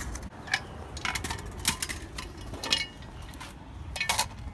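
Irregular metallic clicks and clinks of hand tools against metal, some with a brief ring, as parts are tightened up.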